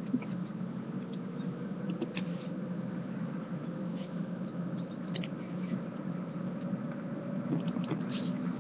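Steady engine and road noise inside a moving car's cabin, with a faint tone slowly rising in pitch. A few short, faint high ticks come through about two, four, five and eight seconds in.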